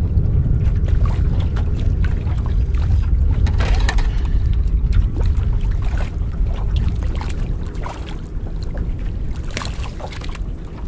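Steady low rumble of wind on the microphone, with a few short splashes from a hooked whiting thrashing at the water's surface, about four seconds in and again near the end.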